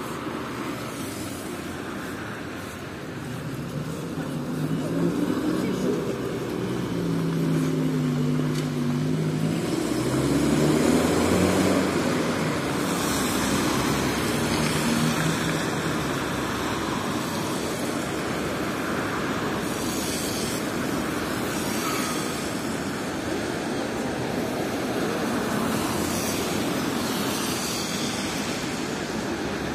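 City traffic on a wet street: a steady hiss of tyres on wet asphalt, with a vehicle engine rising and then falling in pitch as it passes, from about four to fifteen seconds in.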